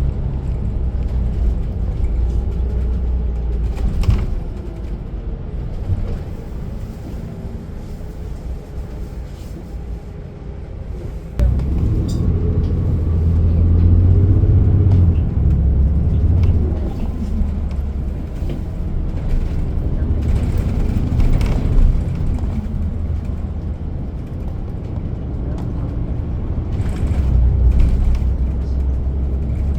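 City bus running, heard from inside the cabin: low engine and road rumble. It goes quieter for several seconds, then the engine noise rises suddenly about eleven seconds in as the bus speeds up.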